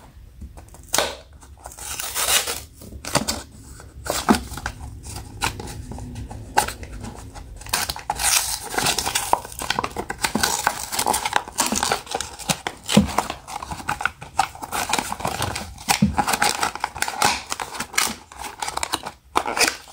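Small cardboard blind box being handled and torn open by hand: its sealed flap rips and the paper insert rustles. Short clicks and scrapes come first, then denser tearing and crinkling from about eight seconds in.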